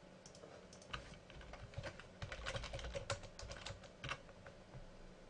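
Typing on a computer keyboard: a run of quick keystrokes starting about a second in, densest in the middle, ending with a single stroke about four seconds in.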